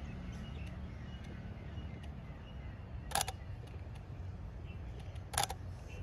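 Camera shutter firing twice, two short sharp clicks a little over two seconds apart, over a steady low rumble.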